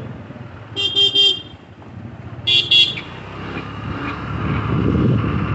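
Vehicle horn beeping in short toots, three quick ones about a second in and two more about a second and a half later. Engine and road noise of a moving motorcycle build up toward the end.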